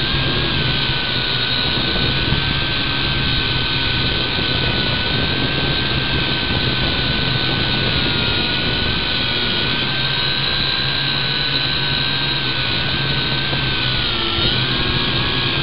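V686G quadcopter's four electric motors and propellers whining steadily in flight, heard close-up through its onboard camera. The pitch wavers slightly with throttle and dips briefly near the end.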